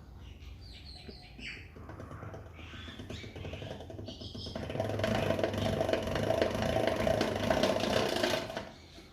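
Hand-cranked pasta machine running a sheet of dough through its fettuccine cutter: a few short high-pitched sounds early on, then a louder, steady, fine-grained rattle of the turning rollers and gears from about halfway in, stopping shortly before the end.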